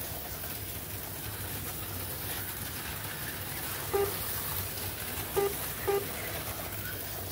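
HO-scale slot cars running around a plastic track, a steady whirring hum. Three short electronic beeps: one about four seconds in, then two close together a second and a half later.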